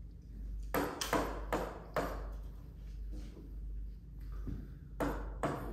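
Marker tapping on a board while writing: a run of sharp taps about a second in and another cluster near the end.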